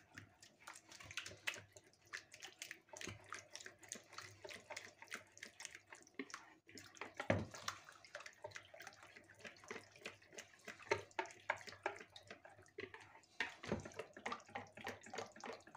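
Small silicone whisk beating a thin liquid batter of yogurt, milk and egg in a bowl: rapid, irregular wet sloshing with light ticks of the whisk against the bowl.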